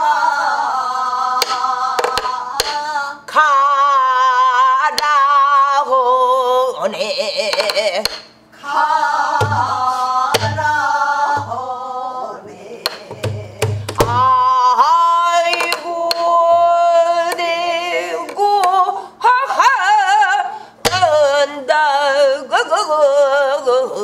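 Singing in Korean folk (pansori-style) voice with a wide, wavering vibrato, accompanied by a buk barrel drum: low thumps from palm strokes on the head and sharp clicks from the stick, clustered around the middle of the passage.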